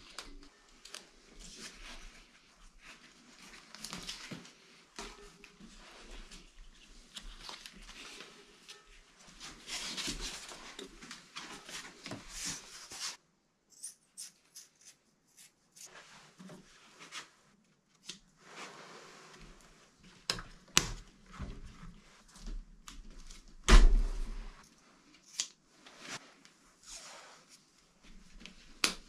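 Rubbing and rustling of stretchy handlebar tape being handled and wrapped on a bike, with scattered small clicks. Later come sharper clicks and knocks, the loudest a single thunk about two-thirds of the way through.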